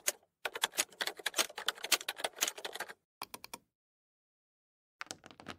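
Computer keyboard typing: a quick run of key clicks for about two and a half seconds, a few more keystrokes just after, then a pause and a few clicks near the end.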